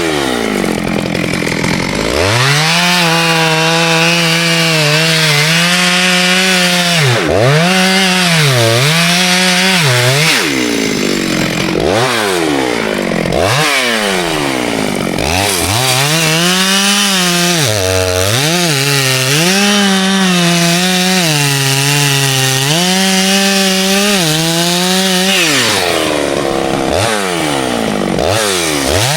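Two-stroke chainsaw cutting ash wood at high revs, its engine note sagging under load and climbing back again and again. It drops back briefly near the start, about midway and near the end.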